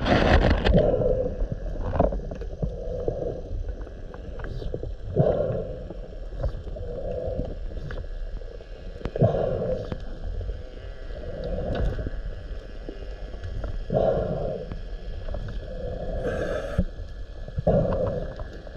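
Scuba regulator breathing underwater: exhaled bubbles rumble out in bursts every few seconds, with quieter swells of breath between them.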